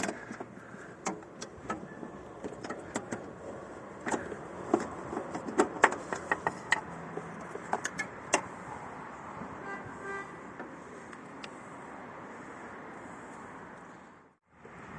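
Irregular metallic clicks and knocks of a car's steering shaft parts and hand tools being handled, over a steady low hiss. The sound drops out briefly near the end.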